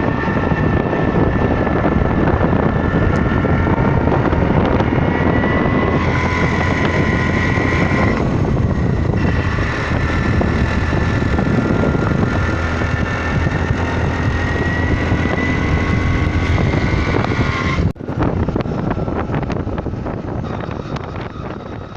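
A road vehicle under way: steady engine and road noise with wind on the microphone, and a high whine running over it. The sound breaks off for a moment near the end, then returns and fades.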